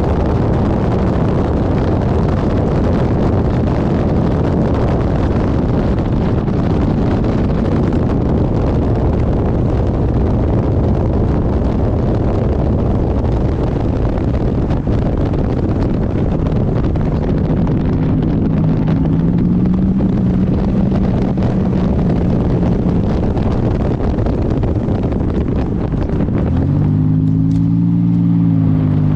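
Race car's GM engine running at speed, heard from onboard under heavy wind and road noise. Near the end the engine note comes through clearly, its pitch dipping and rising.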